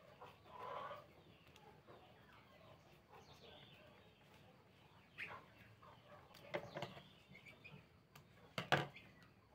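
Faint handling sounds of ribbon, needle and thread, with a few sharp clicks. The loudest click, near the end, is scissors snipping the sewing thread.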